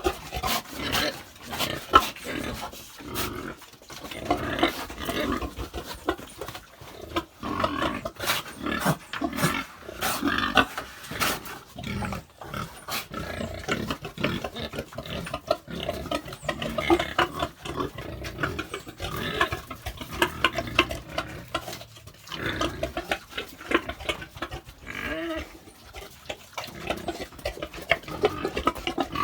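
Pigs grunting irregularly, a boar and a sow penned together for mating, with many sharp knocks and scuffles among the grunts.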